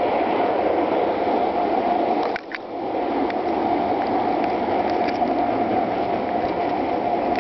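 Gauge one garden railway train running along its track, a steady rolling rumble of the wheels on the rails heard from a camera riding on the train. The sound drops out for a moment about two and a half seconds in, and there are a few faint clicks.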